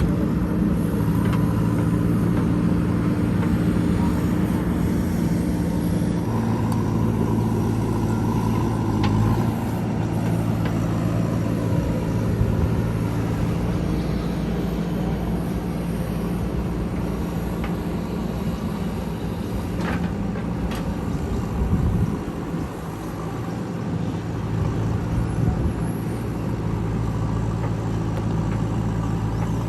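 JCB 3DX backhoe loader's diesel engine running steadily while the machine travels, its engine speed shifting a few times.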